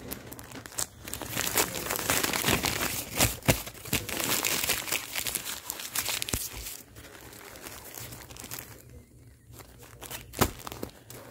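Crinkling of a clear plastic bag full of paper-wrapped adhesive bandages being handled, busy and crackly through the first half, quieter after about seven seconds, with one sharp crackle near the end.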